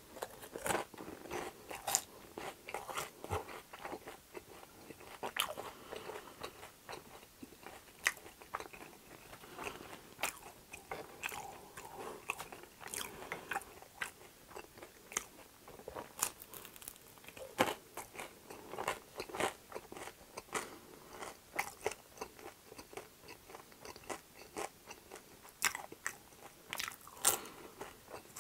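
Close-miked eating of crispy fried food, a potato smiley and a pan-fried dumpling (gunmandu): sharp, irregular crunches with chewing between them.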